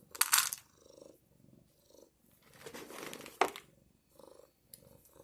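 A domestic cat purring in an even, pulsing rhythm. A brief loud noise comes just after the start, and a longer noisy stretch ends in a sharp click about three and a half seconds in.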